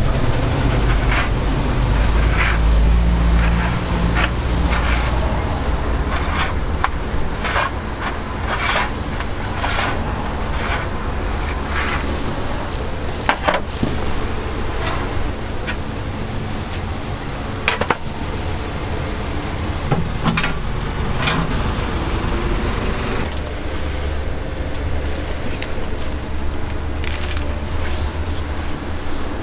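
Steady low street-traffic rumble, heavier in the first few seconds, with scattered sharp clicks and knocks of cooking utensils at a street-food stall.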